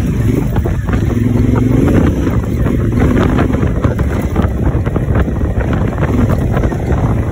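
Honda Africa Twin's parallel-twin engine running at road speed over a rough dirt track, with heavy wind buffeting on the microphone. Frequent small knocks and rattles from the bike jolting over the uneven surface run through it.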